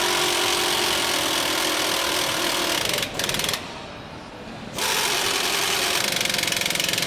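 Pneumatic power tool on a bus assembly line, running in three bursts with a fast rattle: a long one of about three seconds, a short half-second one, then about two seconds more.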